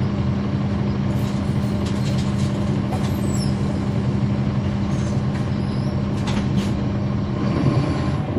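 Caterpillar C13 diesel engine of a 2009 NABI 416.15 transit bus, heard from inside the bus, running with a steady drone; the note shifts near the end.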